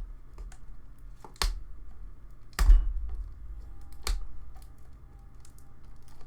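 Handling of a shrink-wrapped cardboard card box while it is being opened: small ticks and crinkles with three sharper knocks about a second and a half apart, the middle one the loudest.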